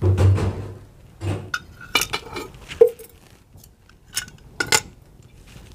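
Steel ladle and small steel oil jug clinking against a kadhai as oil is poured in: a series of separate sharp metallic clinks, the first and loudest right at the start.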